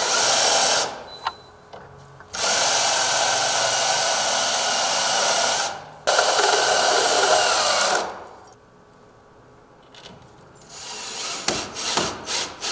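Power drill running in three long bursts, opening up screw holes to countersink them for security door screws. Near the end, a few light clicks and knocks.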